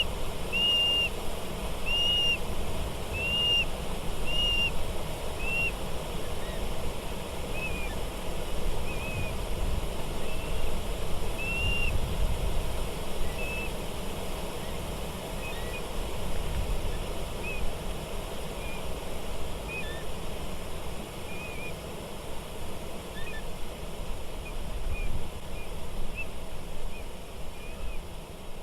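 Steady rush of water, with a bird repeating a short whistled note about once a second that fades after the first dozen seconds into scattered, fainter notes.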